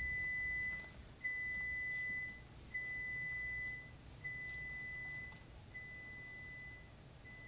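A pure 2,000 Hz test tone played as a series of about one-second beeps, one every one and a half seconds, each step quieter than the last. This is a descending-level audiogram threshold test, starting well above threshold and fading toward inaudibility.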